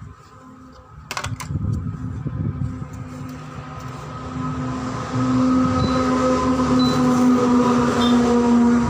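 A motor running with a steady hum, growing louder about five seconds in, with a few sharp clicks just after the first second.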